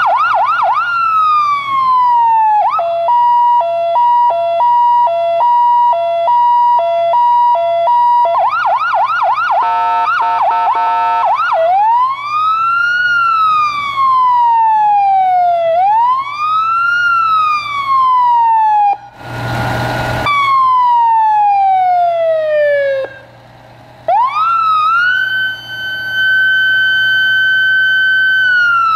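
Federal Signal PA300 electronic siren on a 1991 Seagrave fire engine, cycling through its tones: quick yelping sweeps, an alternating high-low two-tone, a fast warble, then slow rising and falling wails. About nineteen seconds in there is a short harsh blast, and near the end a wail climbs and holds a steady high tone before falling again.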